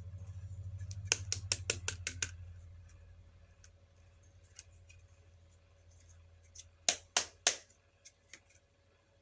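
Plastic clamshell packaging of a Scentsy wax bar clicking and crackling as it is handled and worked open: a quick run of clicks about a second in, then three louder snaps near the end.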